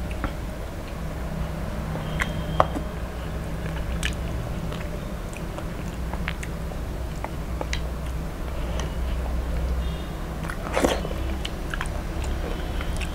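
Close-miked eating sounds: fingers working fried fish and mixing rice with curry, and chewing, heard as scattered sharp crackles and clicks. The loudest crackle comes about two and a half seconds in and a cluster about eleven seconds in, over a steady low hum.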